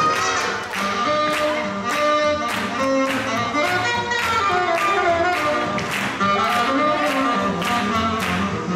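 Instrumental swing jazz music with a steady beat; no singing in this stretch.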